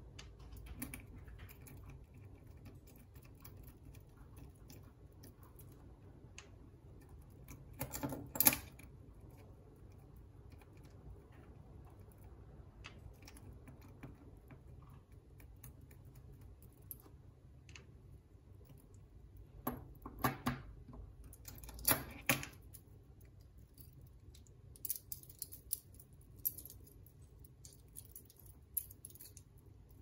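Metal links of a Leatherman multi-tool bracelet clicking and clinking as they are handled and fitted together. There is a louder cluster of clinks about a quarter of the way in, two more just past the middle, and then lighter scattered ticks.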